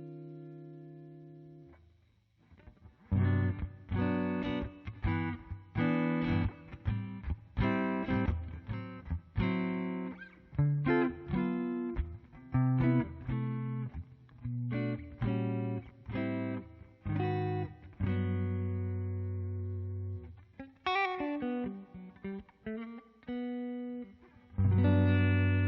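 Telecaster electric guitar played through a Line 6 HX Stomp amp modeller: a chord dies away, then after a short pause a run of picked notes and chords, a held low note, and a loud chord struck near the end and left ringing.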